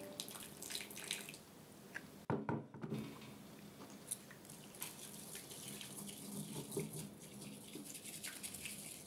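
Water poured from a kettle into a glass bowl of matcha powder, then a brief clatter about two seconds in. After that a bamboo matcha whisk swishes and scrapes faintly in the glass bowl.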